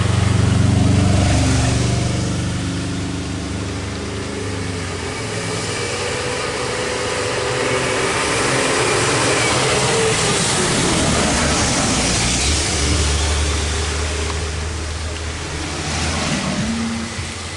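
Motor vehicle engines running close by. The sound swells about a second in and again in the middle, and an engine's pitch rises briefly near the end.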